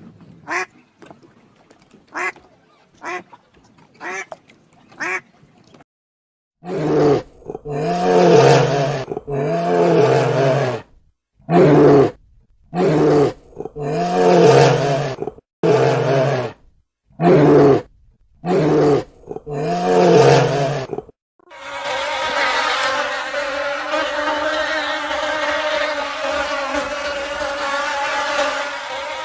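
A sequence of animal sounds: a few short duck quacks, then a run of about ten loud, drawn-out pitched animal calls, each one to two seconds long. About twenty-one seconds in, a steady insect buzz takes over.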